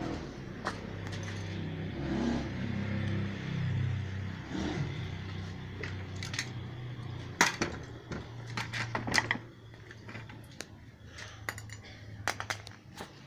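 Light metallic clicks and clinks, a cluster a little past halfway and a few more near the end, over a steady low hum.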